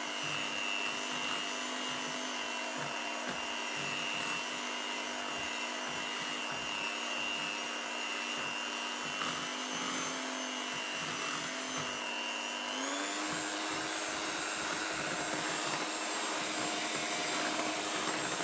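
Electric hand mixer running steadily, its twin beaters churning a thick batter of margarine, egg yolks and fermented cassava in a stainless steel bowl. Its motor whine steps up in pitch about 13 seconds in.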